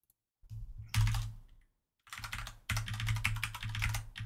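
Typing on a computer keyboard: a short burst of keystrokes about half a second in, a brief pause, then a dense run of rapid key clicks from about two seconds in.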